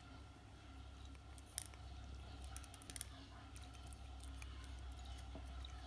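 Cat licking a treat off a plastic spoon: faint, irregular little clicks and smacks of the tongue, over a low steady hum.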